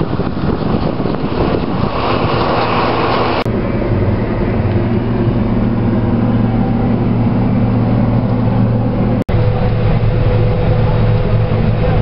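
Engine drone from inside a vehicle cab, steady and low, with a noisy hiss over it in the first three seconds or so. After a sudden brief dropout near the end comes the steady drone of a combine harvester heard from its cab, with a higher steady hum over it.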